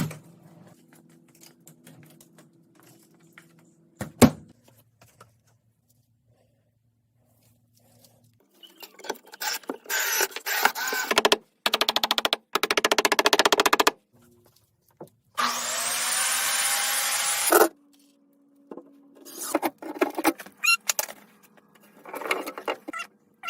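Woodworking: a knock, then several short runs of a power drill working wood, starting and stopping abruptly, one with the motor's pitch rising as it spins up.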